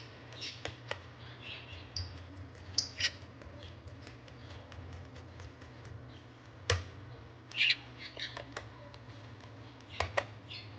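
Irregular clicks and taps of laptop parts being handled and worked on, over a steady low hum.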